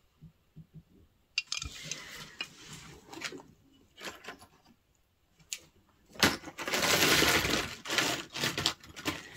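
Small metal jewellery pieces clicking and tapping as they are handled, then a few seconds of louder rustling about six seconds in.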